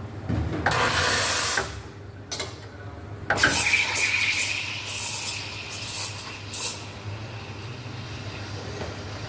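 Several bursts of loud hissing, the longest about a second each, with shorter ones trailing off, over a steady low machine hum.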